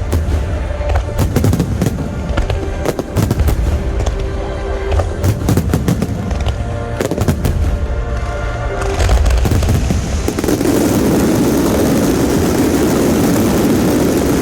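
Finale fireworks going off in rapid succession, a dense run of bangs and crackles. About nine seconds in they merge into a continuous dense noise.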